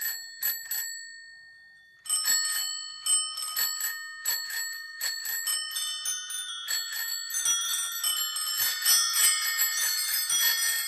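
Bicycle bells ringing in a song's bell interlude. A few single rings die away, and after a short pause many bells at different pitches ring rapidly and pile up.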